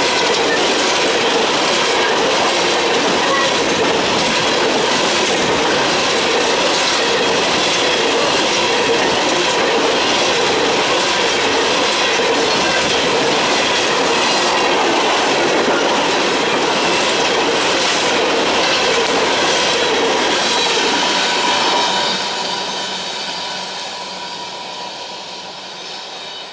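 Empty steel coal hopper cars of a freight train rolling past close by, their wheels clacking steadily over the track. About 22 seconds in, the end of the train passes and the rumble fades as it moves away.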